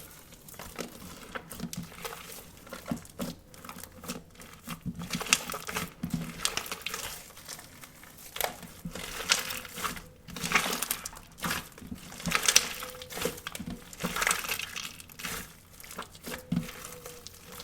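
Slime mixed with a cut-open stress ball's filling being squeezed and kneaded by hand, making irregular crackly, crinkling squelches in short bursts, with a faint squeak here and there.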